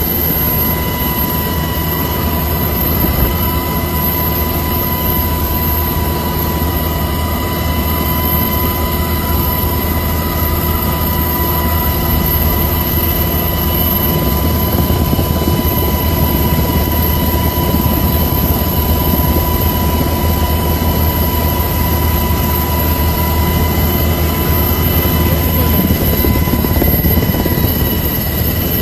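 Helicopter heard from inside its cabin: a steady, loud rotor and engine noise with a high whine that holds one pitch throughout.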